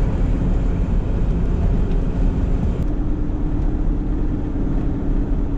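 Camper van driving: steady engine and road noise, with a steady hum joining about three seconds in.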